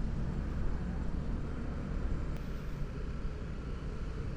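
Honda CB150R's single-cylinder engine running steadily while riding, under wind and road noise on the helmet-mounted microphone.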